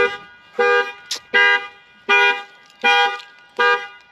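Car horn of a 2018 Ford Mustang GT honking over and over as its alarm goes off: six short honks about three quarters of a second apart. The alarm has been set off while the hood is being opened.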